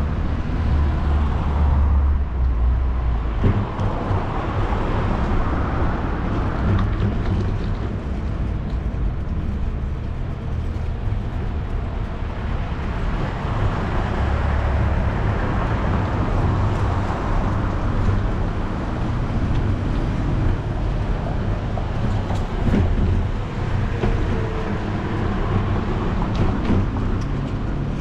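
Bicycle riding over a paved sidewalk: a steady rolling rumble and hiss, with a few faint clicks.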